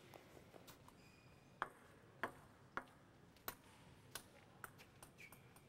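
Table tennis ball bouncing, about six sharp clicks roughly two-thirds of a second apart, while the hall is otherwise quiet.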